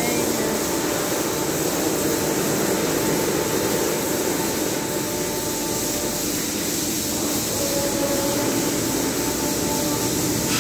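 Christ car wash air dryer blowers running with a steady noise of blown air.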